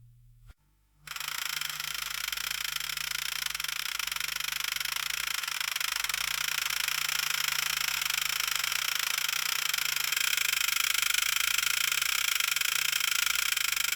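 Boat propeller cavitation, heard underwater: a dense, steady crackling hiss with a fast fine rattle over a faint low hum. It starts about a second in and cuts off suddenly near the end.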